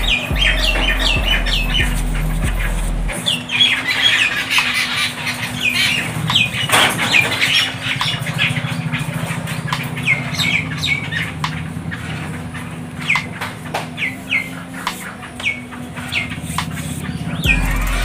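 A flock of jungle babblers squabbling, giving many short, harsh, squeaky calls that fall in pitch, densest in the first half and sparser later, with wing flaps and sharp taps of beaks and feet on a corrugated metal roof.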